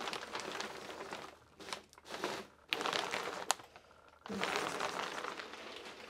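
Plastic vapor-barrier sheeting crinkling and crackling under a small rubber-tyred inspection robot driving across a crawl-space floor. It comes in several uneven bursts, with a couple of sharp clicks about halfway through.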